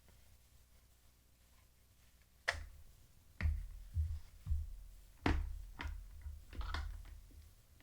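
Handling noise: about seven sharp clicks and knocks, each with a low thud, as gear is handled and set up on a desk, starting a couple of seconds in after near silence.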